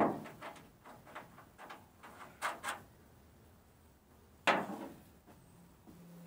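Metal knocks and clicks from a heavy hammer held as a backing weight against a stud head on a steel pickup fender. There is a sharp knock at the start, then a run of light clicks and taps, and another sharp clank about four and a half seconds in as the hammer comes away from the fender.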